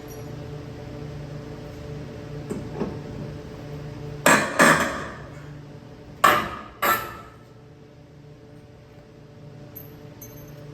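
Hammer blows on the nailed wall framing: two light knocks, then four loud strikes in two pairs about two seconds apart, each ringing briefly.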